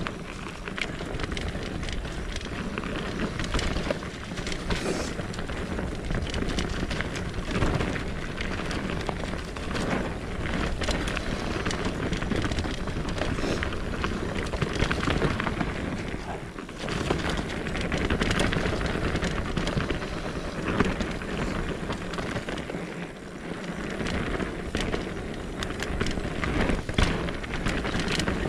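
Mountain bike riding fast down a dirt singletrack: continuous tyre noise on the dirt with the rattle and many small knocks of the bike over roots and ruts, picked up close by a bike-mounted action camera. The noise eases briefly twice, about two-thirds of the way through and again a little later.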